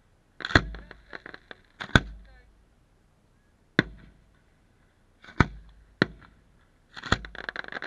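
Aerial firework shells bursting: about six sharp bangs spread through a few seconds, each with an echoing tail. Rapid crackling follows the first burst and another near the end.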